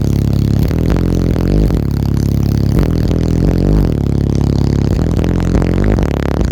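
Bass-heavy music played very loud through a car audio system of eight Sound Qubed HDX4 15-inch subwoofers, its deep bass notes stepping and sliding in pitch, with panels rattling along.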